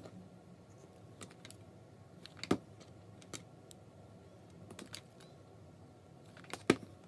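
Scattered light clicks and taps of small plastic craft pieces (an empty glue stick, a button and beads) being handled and set against a wooden tabletop, with two louder knocks, one about two and a half seconds in and one near the end.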